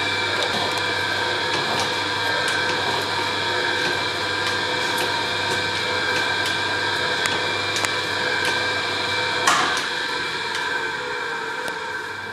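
1850s Sharp & Stewart belt-driven slotting machine taking a cut: the ram strokes up and down over a steady whir of the belt drive, with regular light clicks and one louder knock about nine and a half seconds in.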